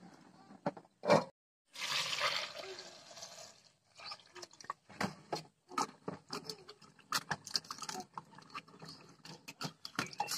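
Hands washing cut ivy gourd (kundri) pieces in a steel pail of water. About two seconds in there is a rush of water for a couple of seconds, then a string of short splashes and clinks as the pieces are rubbed and swished against the metal.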